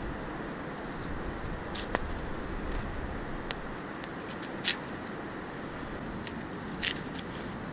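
A few sharp crunches and clicks as chunks of onion, zucchini and green pepper are pushed onto a wooden skewer, over a steady background hiss.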